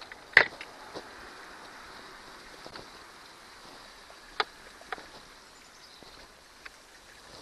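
A few sharp clicks and knocks from hands working on an outboard motor's wiring and parts, one loud near the start and two more about four and a half and five seconds in, over a steady faint hiss. The engine is neither running nor cranking.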